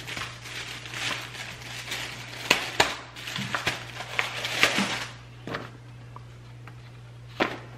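Plastic packaging crinkling and crackling as bubble wrap and a plastic bag are handled and opened, with paper rustling. The crackling is busiest for the first five seconds, then only a few clicks remain over a steady low hum.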